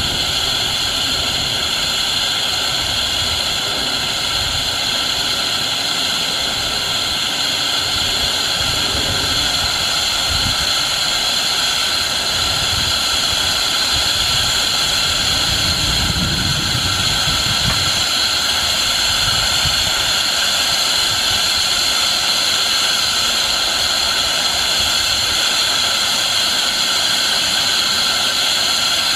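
Steam hissing loudly and steadily as it blows out around the cylinder of an 1890s Atlas automatic steam engine, with faint, uneven low thumping from the engine underneath.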